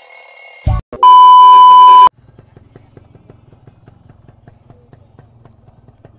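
A loud, steady electronic beep tone lasting about a second, just after a shorter high-pitched electronic tone. It is followed by faint, rapid, even ticking over a low hum.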